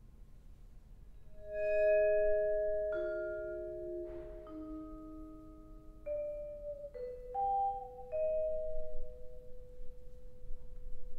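Vibraphone played with soft mallets: after a short pause, a slow phrase of single notes and two-note chords, each left ringing for several seconds under the next.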